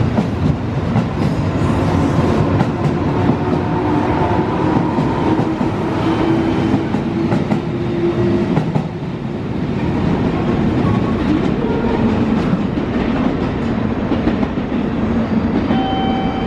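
JR Kyushu 415-1500 series electric train, two coupled sets, pulling away and accelerating: the traction motors hum, rising in pitch as it gathers speed, over a steady rumble, with wheels clacking over the rail joints.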